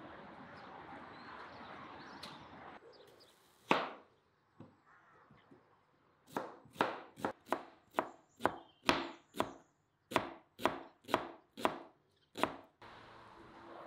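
Steady background noise for the first few seconds. Then a kitchen knife chops a red onion on a plastic cutting board: one chop, a pause, then a run of about fifteen chops at roughly two a second.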